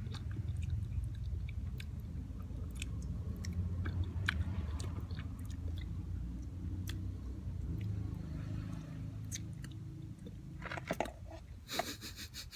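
A person chewing raw calamondin fruit close to the microphone, wet mouth sounds with scattered small clicks.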